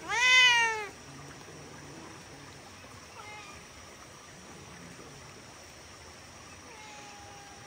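An orange-and-white cat gives one loud meow, about a second long, rising then falling in pitch, begging to be fed. A faint brief call follows a few seconds later, and a faint thin held tone comes near the end.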